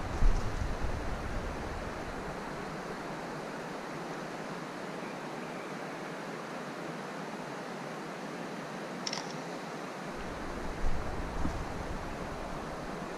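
Steady rushing hiss of open-air background noise, with low rumbling thumps of wind buffeting the microphone in the first second and again from about ten seconds in. A single faint click sounds about nine seconds in.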